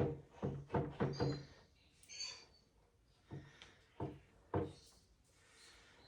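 Irregular knocks and clunks of heavy statue parts being handled and set down during assembly, several in quick succession at first, then three more spaced about half a second apart.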